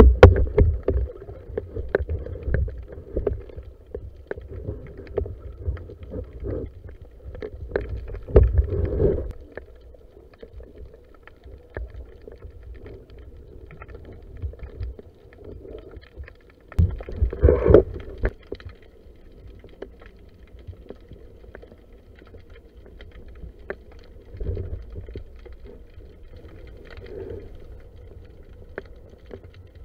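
Muffled water movement heard through an underwater camera housing: low rumbling and sloshing with scattered knocks and clicks, surging louder about eight seconds in and again around seventeen seconds.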